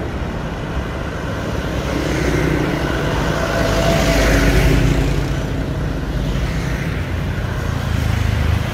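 Road traffic passing: motorbikes, a truck going by about four seconds in and a car near the end, over a steady low rumble.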